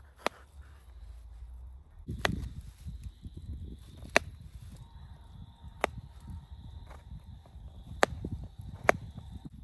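A series of about six sharp knocks, irregularly spaced one to two seconds apart, over a low rustling rumble that starts about two seconds in.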